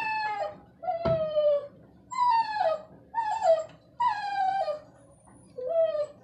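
Small dog whining in distress at being bathed: a run of about six loud, drawn-out cries, each falling in pitch, with a soft thump about a second in.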